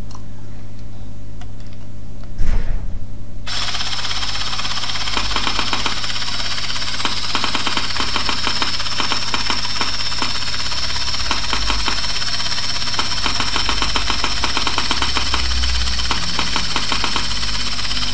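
A 3Shape TRIOS intraoral scanner starts up a few seconds in and runs while scanning teeth: a steady hiss with a high whine and a fast, even fine rattle. Just before it starts there is one loud thump.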